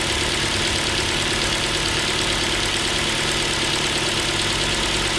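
Ford Focus 2's Duratec HE 2.0 inline-four petrol engine idling with a fast, regular knock. The owner says it sounds like piston pin knock but doubts it is the pin, since it grew quieter as the engine warmed.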